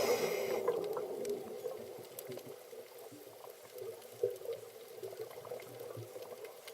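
Underwater hydrophone recording: a faint watery crackle of many fine ticks over a steady hum. It fades down over the first couple of seconds and then stays quiet.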